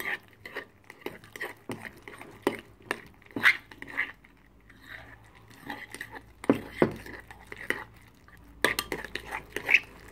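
Metal spoon stirring thick slime in a glass bowl: irregular clinks and scrapes of the spoon against the glass, busiest near the end.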